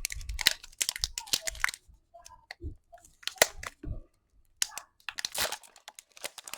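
Foil Pokémon booster pack wrapper crinkling and being torn open by hand. There is a quick run of crackles, a few scattered ticks, then more crackling near the end.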